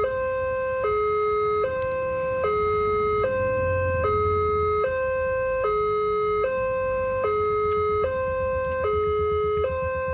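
Railway level-crossing warning alarm: an electronic siren switching back and forth between a lower and a higher tone about every 0.8 seconds, at a steady level. It signals that a train is approaching and the crossing gates are closing.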